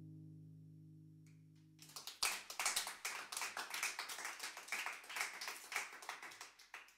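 An acoustic guitar's final chord rings out and fades. About two seconds in, a small group starts applauding, with individual claps audible, and it tapers off near the end.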